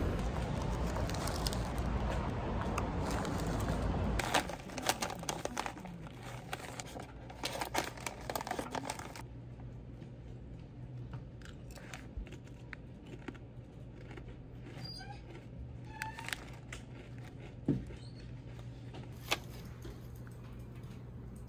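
A steady, traffic-like rumble that cuts off about four seconds in, followed by close handling of packaging: crinkling and rustling with scattered clicks and light taps.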